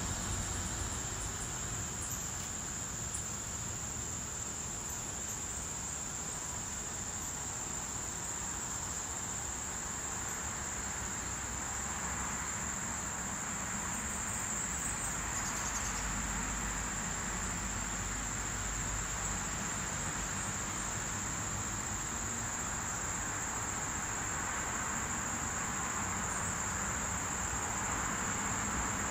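Insects singing in an unbroken high-pitched drone, over a soft background hiss and low rumble.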